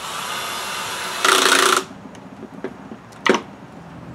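Cordless drill driving a pocket screw: the motor runs steadily, then gets much louder for about half a second as the screw draws the joint tight, and stops suddenly. Two sharp knocks follow, the louder one near the end.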